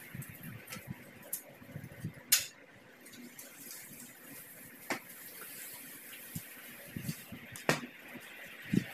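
Floor squeegee being pushed across a wet tiled floor: faint swishing and scattered knocks, with a sharp click about two and a half seconds in and a few more knocks near the end.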